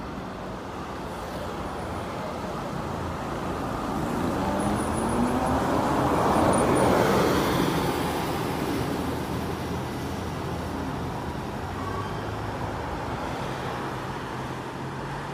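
Street traffic: a car passes close by, its engine note rising as it approaches and its noise swelling to a peak about halfway through, then fading. The low, steady hum of other engines runs underneath.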